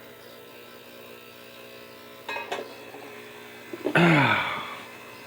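Ultrasonic cleaner running with a steady electric buzz while it cleans a watch case in water. A couple of small clicks sound about two and a half seconds in, and a man's voice is heard briefly about four seconds in.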